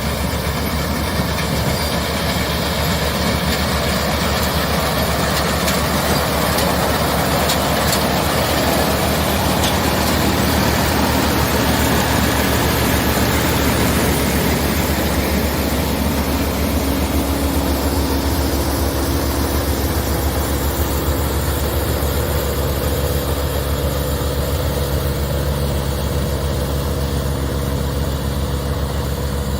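Massey Ferguson 9500 tractor's diesel engine running steadily, with a strong low rumble; its note shifts slightly a little past halfway.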